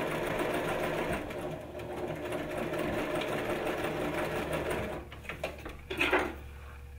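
A sewing machine stitching a seam at a steady speed. It stops about five seconds in, and a brief sound follows about a second later.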